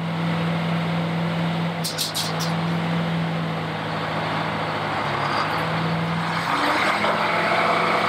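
Circular-blade sawmill machinery running, a steady drone with a noisy mechanical haze over it. A short cluster of sharp high clicks comes about two seconds in, and a harsher mid-pitched noise builds near the end.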